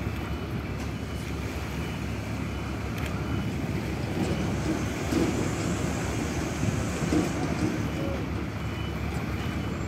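Truck engines running and a loaded cargo truck driving across a ferry port's concrete apron: a steady rumble.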